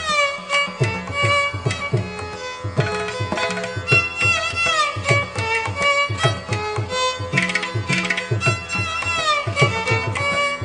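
Background instrumental music in a Carnatic classical style: a melody that slides between notes over repeated hand-drum strokes.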